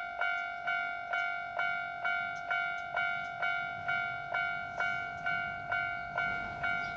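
Japanese level-crossing warning bell ringing "kan-kan" in an even rhythm of about two strikes a second, each ring dying away before the next. In the second half a train's low rumble grows underneath as it approaches the crossing.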